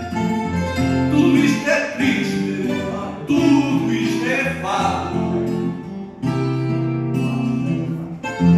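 Fado music: plucked guitars playing a run of notes, with some singing.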